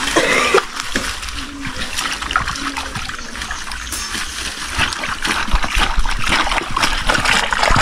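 Banana fibres being washed by hand in water, with irregular splashing and trickling as the fibres are rinsed to soften them.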